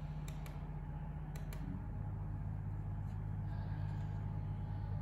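Four light clicks of the Dell P2419H monitor's menu buttons being pressed, in two quick pairs within the first second and a half, over a steady low hum that drops in pitch about two seconds in.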